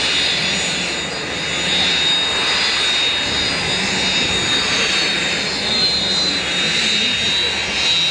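Aircraft engines running steadily, a dense continuous noise with a high, steady whine over it that edges up slightly near the end.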